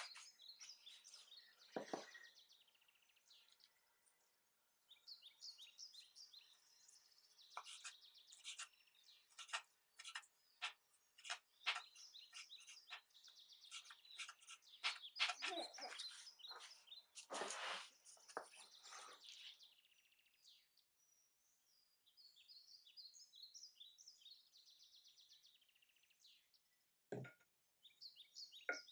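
Faint, high bird chirping, with a run of quick sharp clicks through the middle, loudest a little past halfway, and a single soft thump near the end.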